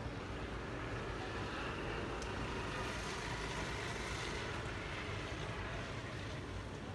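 Steady outdoor city background noise, mostly distant traffic, slightly louder in the middle.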